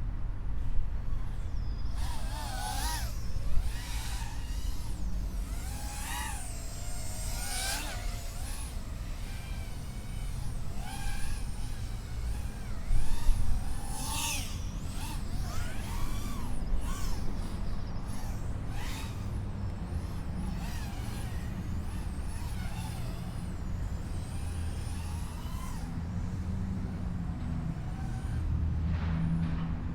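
GEPRC Smart 35 FPV quadcopter's motors whining, the pitch sweeping up and down with sharp high surges as the throttle is punched. A steady low rumble sits underneath.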